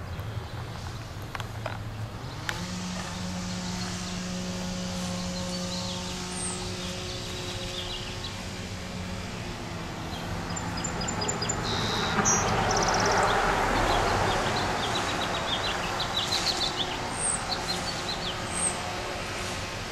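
Outdoor background of a suburban yard: a low droning hum for the first half, a vehicle passing by in the middle as the loudest part, and small birds chirping near the end.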